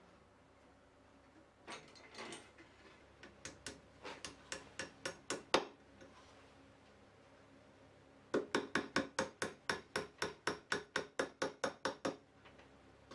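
Quick, light hammer taps on wood in two runs: a first run growing louder to one hard strike, then after a pause a steady run of about five taps a second.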